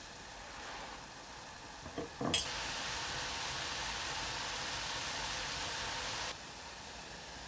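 Pan of kashayam, water with roasted spice powder, sizzling on the stove: a couple of knocks about two seconds in, then a steady hiss that cuts off suddenly near the end.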